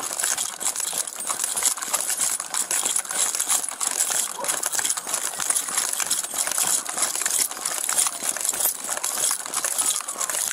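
Police duty gear and keys jingling and rattling, with rubbing and knocking on a chest-worn body camera, as the wearer moves quickly on foot: a dense, irregular clatter.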